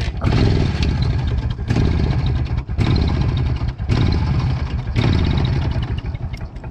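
IZh Planeta 4's single-cylinder two-stroke engine running after a start, unevenly, dropping out briefly about once a second.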